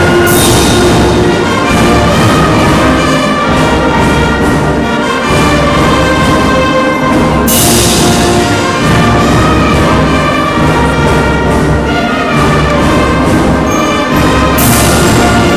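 A concert band of brass and woodwinds playing loudly in sustained chords, with three cymbal crashes: near the start, about halfway through, and near the end.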